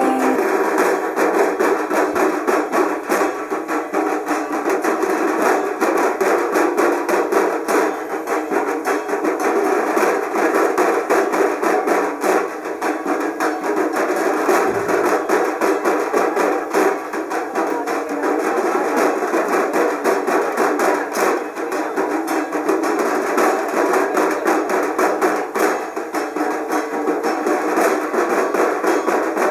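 Dhak drums beaten fast with sticks, a dense unbroken stream of sharp strikes.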